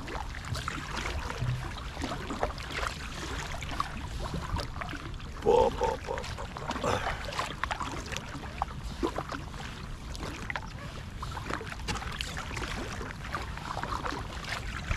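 Kayak paddle strokes: a double-bladed paddle dipping and pulling through calm water, side to side, with splashes and drips. About five and a half seconds in comes a short pitched two-part sound, like a brief voice.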